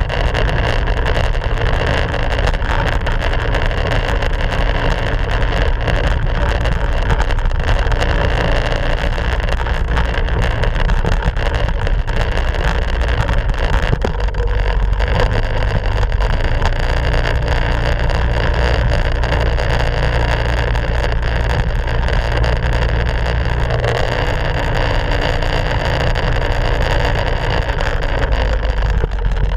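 Minibike engine running steadily under way, its note shifting a few times as the speed changes, with wind noise on the microphone.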